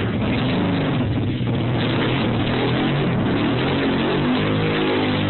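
Pit bike engine revving, its pitch rising and falling.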